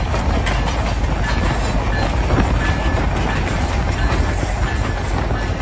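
Canadian National diesel-electric locomotives, an SD40-2W and an SD70M-2, running past with a steady low rumble of engines and wheels on the rails and faint scattered clicks.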